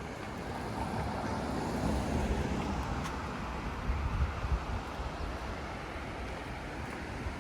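Ocean surf washing on the beach, a rushing noise that swells and eases over a few seconds, with wind buffeting the microphone in low thumps about halfway through.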